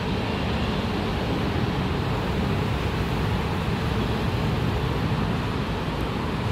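Steady running noise of a Yellow Line monorail train (Bombardier Innovia Monorail 300, rubber-tyred) heard from inside the car as it travels along the elevated guideway: an even low rumble with hiss above it.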